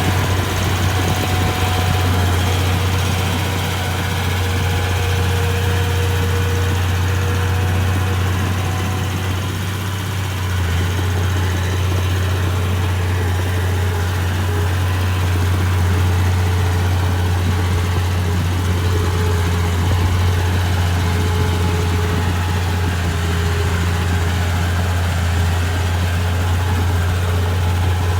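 Bulldozer's diesel engine running steadily with a deep drone, easing slightly about ten seconds in.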